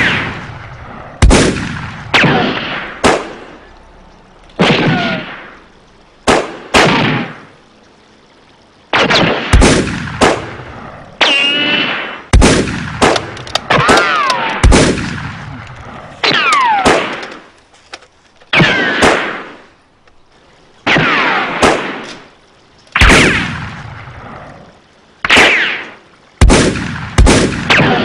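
Gunshot sound effects: single shots fired at irregular intervals of a second or two, each a sharp crack that dies away, several trailing a falling whine.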